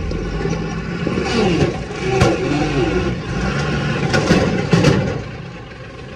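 Tata 4x4 army truck's Cummins diesel engine running as the truck crawls over rough, rutted ground, with a few sharp knocks along the way. It grows quieter near the end.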